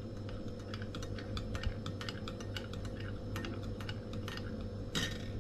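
Small irregular clicks and clinks of a spoon against a coffee cup as a cup of coffee is made and stirred, with a brief louder scrape near the end, over a steady low hum.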